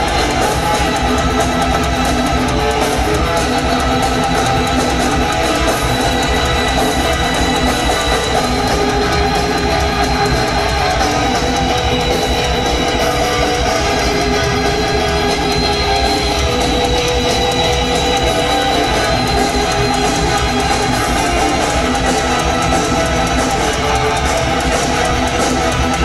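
Rock band playing an instrumental live: loud electric guitar and bass over a steady beat.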